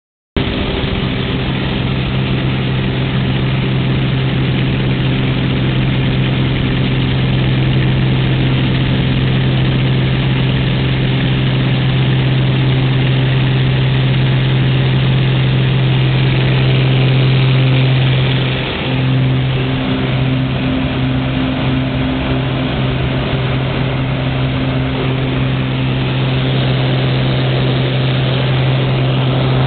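Maule seaplane's engine and propeller running with a steady drone. It dips briefly about two-thirds of the way through, then holds steady again.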